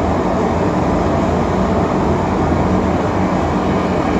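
Forced-air propane forge burner running with a steady rushing rumble of burning gas, its air supply turned down so the flame shifts from oxygen-rich toward neutral.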